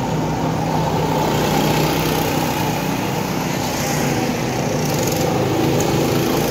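Small go-kart engines running steadily as several karts drive around the track.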